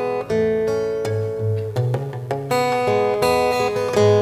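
Solo steel-string acoustic guitar played fingerstyle: a plucked melody over a moving bass line, with a few sharp accented strokes.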